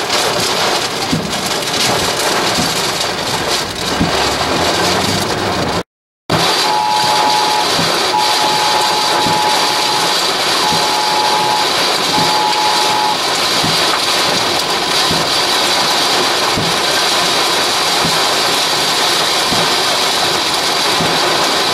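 Heavy wind-driven rain hitting a vehicle, a loud steady roar heard from inside the car. The sound cuts out for a moment about six seconds in, then resumes. Over the next several seconds a pair of steady electronic beep tones sounds on and off four times.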